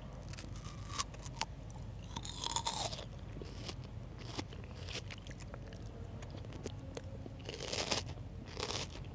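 Close-miked chewing of food, with crunchy bites and small scattered clicks.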